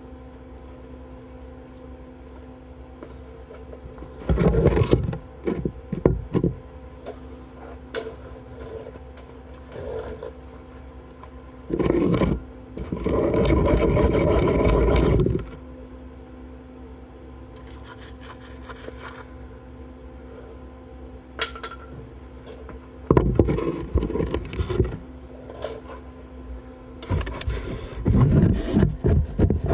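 Arc welding in bursts: a long steady run of about three seconds in the middle, with shorter, choppier bursts before and after. A steady low hum lies under the quiet stretches between the bursts.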